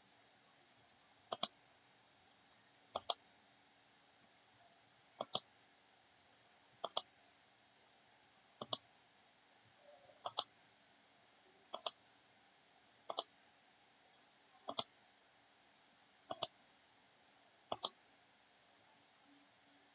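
Computer mouse button clicking: eleven quick pairs of clicks, spaced about one and a half seconds apart.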